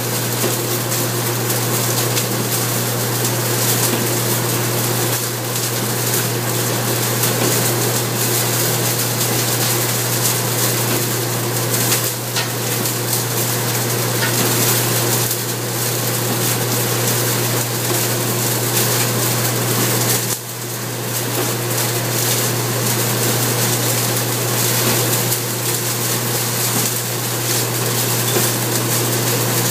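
A straw-shredding machine running steadily, its toothed rotor spinning and tearing up straw, with a constant hum under a rushing, whirring noise. The noise drops off briefly about two-thirds of the way through.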